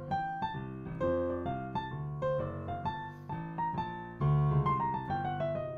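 Piano playing a jazz ii–V–I in F: left-hand chords (Gm7, C7, Fmaj7) under a right-hand line built on the half-whole (diminished) scale over the C7. A louder chord lands a little after four seconds in, and the right hand then steps down the keyboard.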